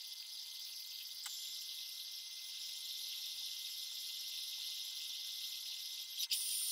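Metal lathe running while a thread is cut on a rod with a hand-held die, the sound sped up sevenfold so it comes across as a steady high hiss with a few faint thin whines.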